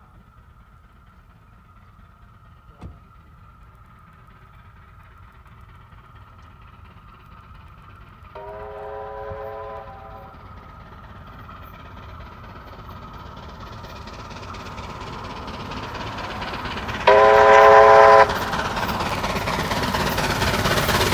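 Steam locomotive 3801 approaching, its whistle sounding two blasts of several notes at once: a fainter one about eight seconds in and a louder, shorter one near the end. Under the whistle, the sound of the train running grows steadily louder as it draws near.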